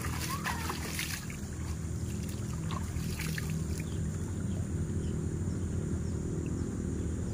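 Cast net being hauled in from river water by hand, with splashes and drips in the first second and again around three seconds in. Under it, a steady low motor hum and a few brief bird chirps.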